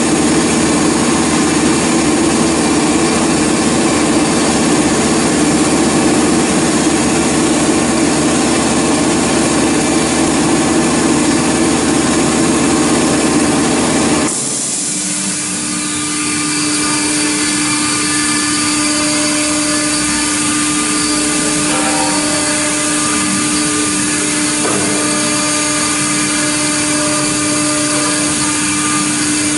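CNC router spindle milling aluminum, a loud steady machining noise. About halfway through it changes suddenly to a slightly quieter, steadier hum with one clear held tone.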